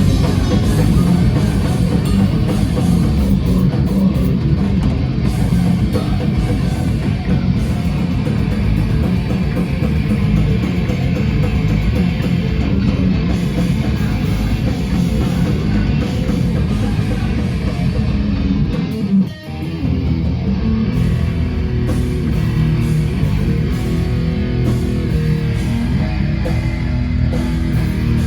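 Live band playing heavy rock music on electric guitars, bass and drum kit, loud and dense throughout, with one brief break about two-thirds of the way through before the band comes back in.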